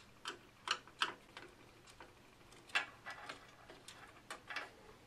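Screwdriver turning a motherboard screw out of its standoff: about a dozen short, irregular clicks and ticks.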